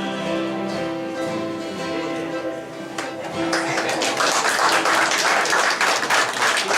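Acoustic guitars ringing out the final chord of the song, then audience applause starting about three and a half seconds in.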